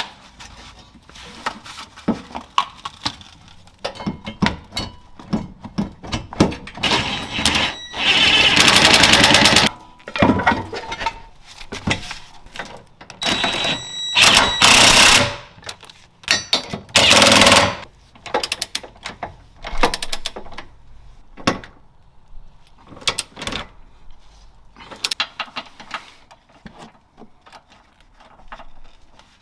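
Power impact wrench run in three bursts driving the hitch receiver's mounting bolts: one of about three seconds some seven seconds in, then two shorter ones. Between the bursts come scattered metal clanks and knocks from tools and parts.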